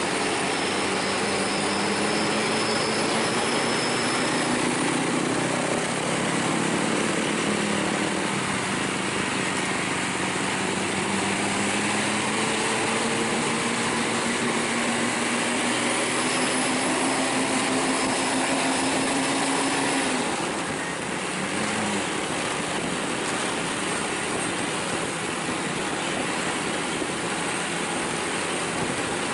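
Vehicle engine running under steady road and wind rush while driving. Its note climbs slowly in pitch as it accelerates, then breaks off with a slight drop in loudness about two-thirds of the way through.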